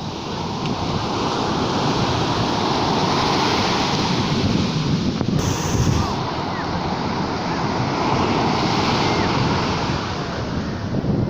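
Sea waves breaking and washing up the shore, swelling twice about six seconds apart, with wind rumbling on the microphone.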